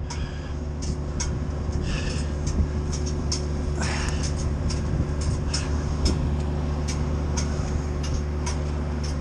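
Titan wood chipper and Kioti subcompact tractor running at a steady pitch, with irregular sharp ticks and clacks about once or twice a second over the hum.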